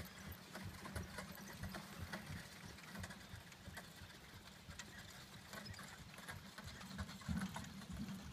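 A horse's hooves on grass as it pulls a carriage at a trot through a cone course: a steady run of soft, low thumps with light clicks over them.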